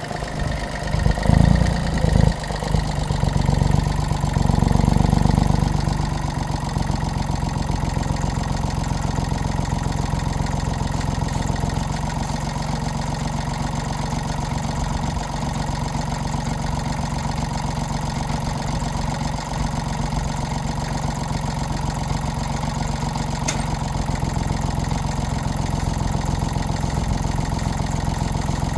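Jansen mini excavator's engine running, louder and uneven for the first few seconds, then settling into a steady idle.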